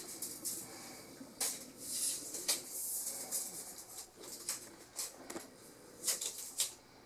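Quiet handling noise: scattered light clicks and taps, about nine of them at irregular intervals, with faint rustling in between.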